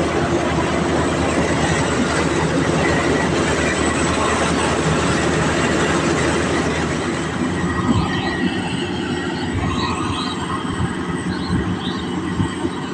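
Rice combine harvester running: a steady, dense engine and machinery clatter that eases a little after about seven seconds. A few short high-pitched squeaks come near the end.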